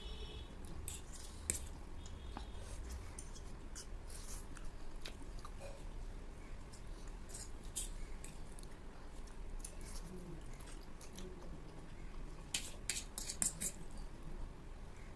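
People eating Maggi instant noodles: chewing with many short, scattered mouth clicks and smacks over a low hum, and a cluster of louder clicks near the end.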